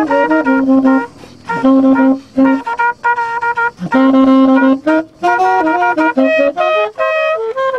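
Tenor saxophone and trumpet playing an improvised jazz line in short phrases, broken by brief pauses.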